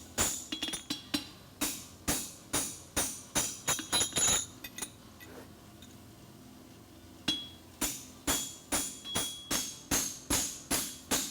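Steady hand-hammer blows on an aluminum horseshoe over a steel anvil, about two a second, each with a short metallic ring. The blows pause for about two seconds midway, then resume.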